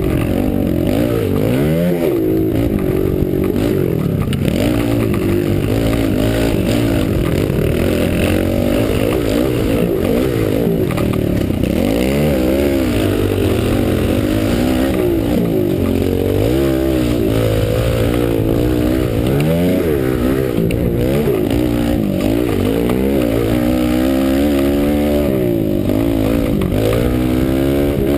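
Small pit bike engine revving up and dropping back again and again, its pitch repeatedly rising and falling, heard close up from a helmet-mounted camera.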